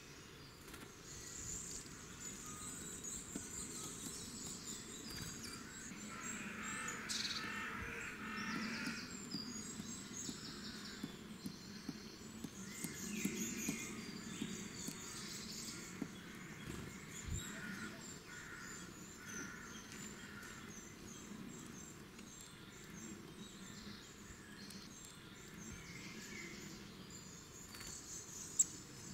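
Several songbirds singing and chirping in woodland, with many overlapping short phrases, over a faint steady low background hum. A single sharp tap sounds near the end.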